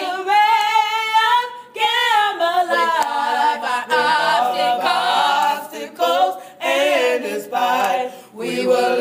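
Unaccompanied voices singing a cappella in sustained, wavering phrases, with short breaks between them.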